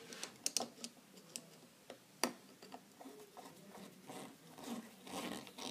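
Small clicks and scrapes from fitting an electrical wire into a main switch's terminal, with one sharper click about two seconds in.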